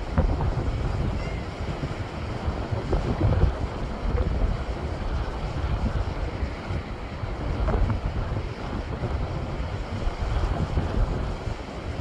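Sea waves breaking and washing over shoreline rocks in a continuous surf noise that swells with several louder surges, mixed with a deep wind rumble on the microphone.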